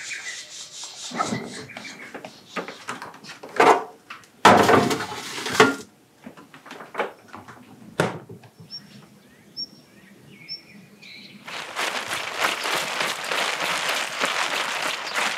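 Scattered knocks and rustles, with a louder rustling burst a little before the middle. A few short bird chirps follow. From about three-quarters in comes a steady hiss of water spraying from a garden irrigation hose over vegetable beds.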